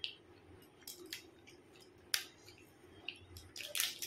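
A chocolate bar's wrapper crinkling and crackling as it is handled and peeled back: a few sharp crinkles spaced apart, then a quicker run of them near the end.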